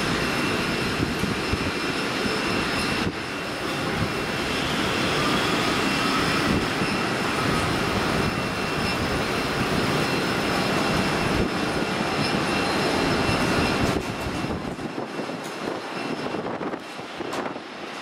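Jet engines of a Boeing 787-9 Dreamliner (Rolls-Royce Trent 1000s) running through landing approach, touchdown and rollout: a loud, steady rush with high whining fan tones. About fourteen seconds in the sound drops to a quieter, more uneven noise.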